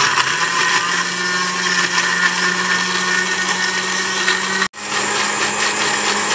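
Panasonic countertop blender running at a steady speed, grinding chillies, shallots, garlic and candlenuts with a little water into a wet spice paste. The motor hum cuts out for an instant a little over halfway through, then carries on.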